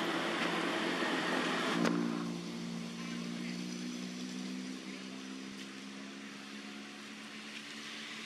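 A motor vehicle's engine running. A rushing noise drops away sharply about two seconds in, leaving a steady engine hum that slowly fades.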